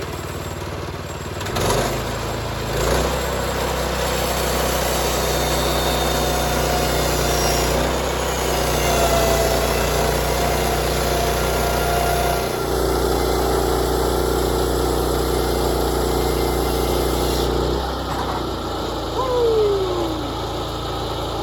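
Engine running steadily. It picks up about two seconds in and settles back near the end, with a brief falling squeal just after.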